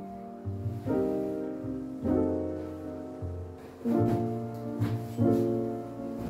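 Background music: soft sustained piano chords over a bass line, a new chord about every second or so.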